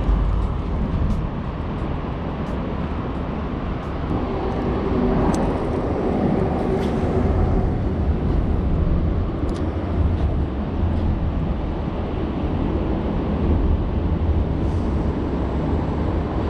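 Steady low rumble of road traffic on the elevated highway bridge overhead.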